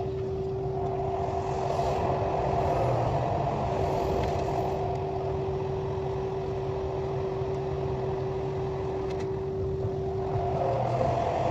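KTX high-speed train running, heard from inside the carriage: a steady rumble with a constant whine that drops out briefly twice.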